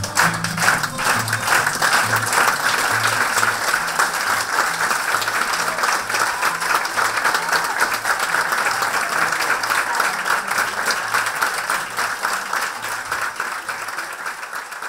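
Audience applauding at the end of a performance, over music with a steady repeating bass line; the applause thins out and fades near the end.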